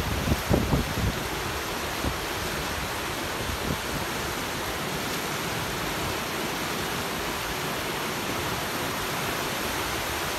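Muddy floodwater rushing steadily down a wadi channel in spate after heavy rain, a constant even rush of water. Wind buffets the microphone briefly about half a second in.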